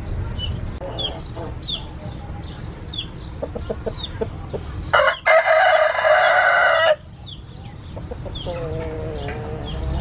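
A game rooster crows once about halfway through: a loud call about two seconds long that ends abruptly. Short low clucks come before it and after it, over repeated high chirps in the background.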